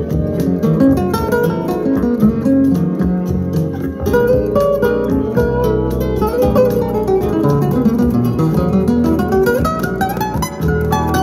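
Instrumental music with plucked strings, playing through a pair of Yamaha NS-10MM bookshelf monitor speakers, each with a 3.5-inch paper-cone woofer and a 1-inch dome tweeter, under test.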